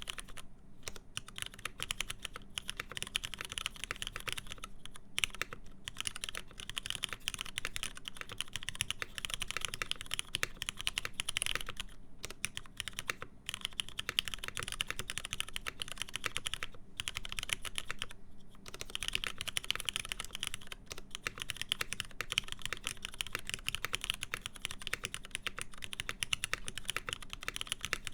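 Steady fast typing on a Linworks Montage mechanical keyboard with lubed MX Black linear switches, a full aluminium plate and PBT keycaps: a dense run of key clicks and bottom-out taps, broken by a few brief pauses in the middle.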